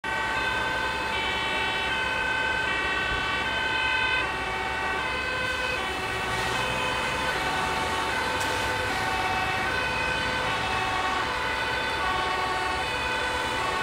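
Dutch fire engine (tankautospuit) on an urgent run with its two-tone siren sounding, stepping between two pitches about every three quarters of a second, over steady motorway traffic noise.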